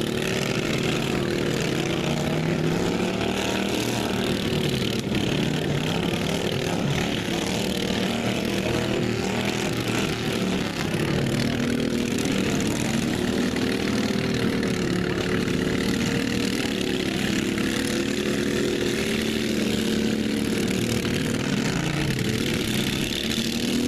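Several racing lawn mower engines running together, their pitch rising and falling as they rev.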